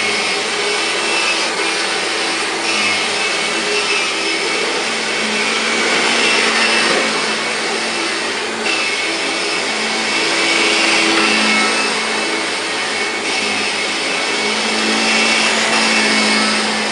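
1999 Kirby G5 upright vacuum cleaner running on carpet, a steady motor-and-fan drone that swells gently every few seconds as it is pushed back and forth.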